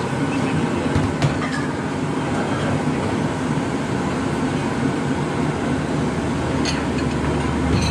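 Steady rumbling of a gas burner under a large pot of boiling noodle water, with a couple of light clicks, the first about a second in.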